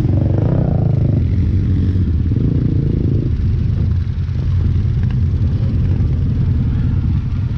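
Off-road vehicle engine running loud and close, easing off a little about three seconds in.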